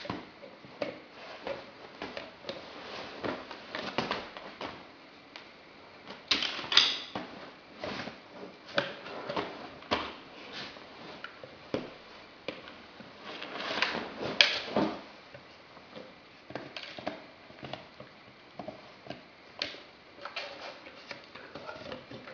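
A Greater Swiss Mountain Dog gnawing a long rawhide chew: a steady run of irregular crunches and clicks, with two louder spells of crunching, about six seconds in and again about fourteen seconds in.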